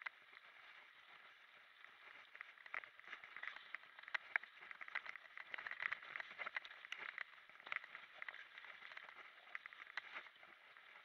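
Mountain bike riding fast over a dirt singletrack: a dense, irregular clatter of small knocks and rattles from the bike over the rough ground, with rolling tyre noise, busier from about two seconds in.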